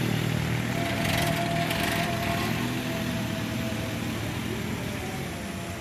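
Small Toyota hatchback's engine running steadily as the car pulls uphill past, with a faint steady whine over it from about a second in until near the end.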